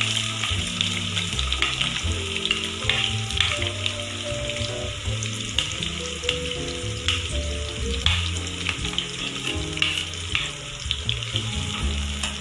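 Chopped onions sizzling in hot oil in a frying pan, under background music with steady stepping notes.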